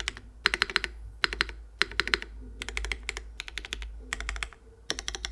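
Typing on a TKD Cycle 7 mechanical keyboard with hand-lubed JWK SOTC v2 switches, an aluminium plate, GMK keycaps and no foam. The keystrokes come in quick bursts of several clicks each, with short pauses between.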